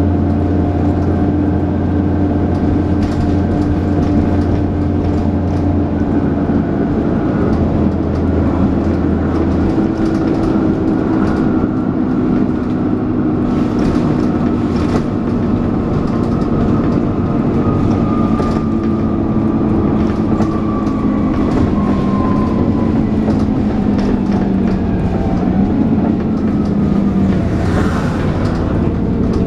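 Dennis Trident 2 double-decker bus heard on board: the engine and drivetrain are running with a whining, vacuum-cleaner-like 'hoover' note. The whine slowly falls in pitch as the bus eases off, a low hum drops out about ten seconds in, and there is a short burst of noise near the end.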